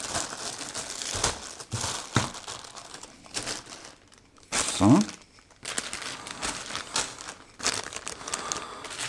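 Clear plastic bags around coiled network patch cables crinkling and rustling as they are picked up and sorted, in irregular handling noises. About halfway through, a brief rising tone is the loudest sound.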